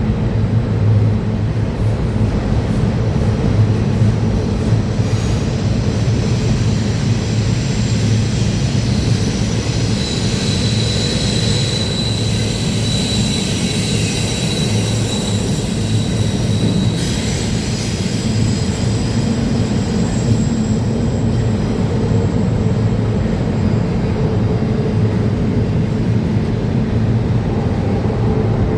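Freight train cars rolling past with a steady low rumble on the rails, with a thin, high, steady wheel squeal from about ten seconds in that stops about seven seconds later.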